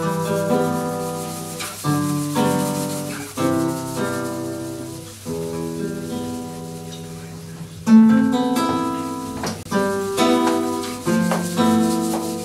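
Two nylon-string acoustic guitars playing an instrumental flamenco-style passage, chords struck with sharp attacks that ring and fade, with a shaker keeping time. The loudest strum comes about two-thirds of the way in.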